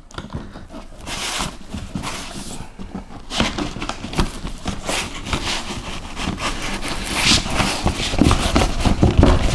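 Cardboard box and packaging being opened and handled: irregular rustling, scraping and knocking that grows busier and louder toward the end.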